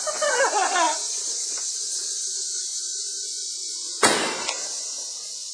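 A small firework going off: one sharp bang about four seconds in, ringing briefly, over a steady hiss.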